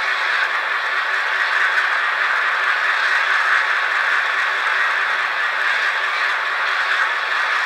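Sound-equipped N-scale FP9 model diesel locomotive playing its prime-mover sound at a steady idle while standing still.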